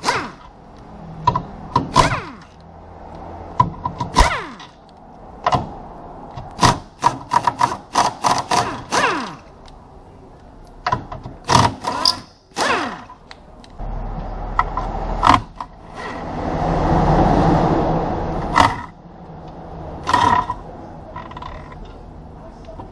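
Metal tools and parts clanking and tapping against metal in irregular runs of sharp knocks, several ringing briefly. A longer scraping rush swells and fades about three quarters of the way through.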